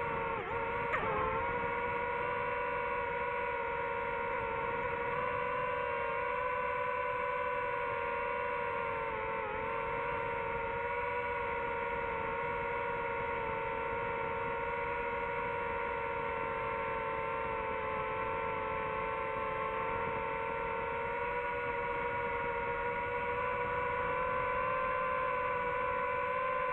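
DJI FPV drone's motors and propellers whining steadily in flight. The pitch dips briefly about a second in and again around ten seconds in as the throttle eases.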